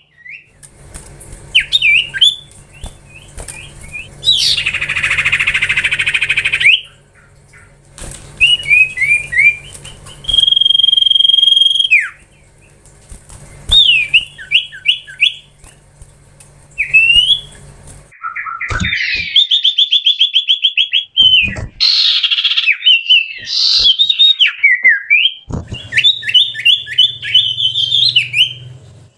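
Common iora (cipoh) singing a varied run of clear whistles, chirps and fast trills, with a harsh buzzing note a few seconds in and a long steady whistle near the middle. The phrases are broken by abrupt silent gaps.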